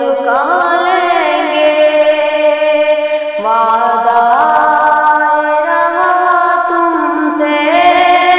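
A ghazal being sung: a voice carries a slow melody of long held notes that glide between pitches, over musical accompaniment.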